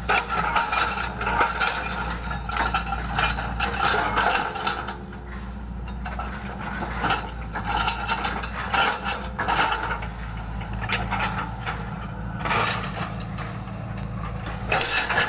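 Hitachi hydraulic excavator running, its engine a steady low hum under irregular metallic clanking and rattling from the working machine.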